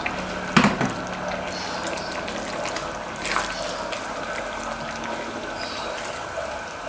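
A silicone spatula stirring krecek and red beans through a simmering coconut-chili sauce in a wok: wet, liquid stirring and bubbling, with a sharper scrape or knock of the spatula against the pan about half a second in and again about three seconds in.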